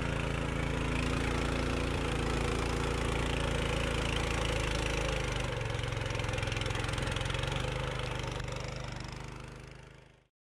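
A vehicle engine running steadily at an even speed. Its note shifts slightly about halfway through, then it fades out near the end.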